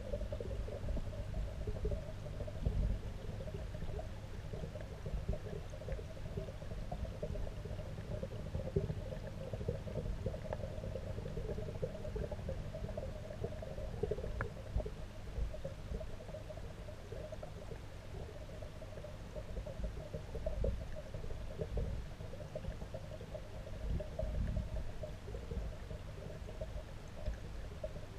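Underwater sound of a fish pond picked up by a submerged camera: a steady muffled low rumble and hum with faint gurgling.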